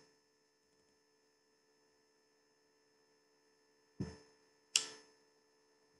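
Faint steady electrical hum, with two short sharp clicks about four seconds in and just under a second apart.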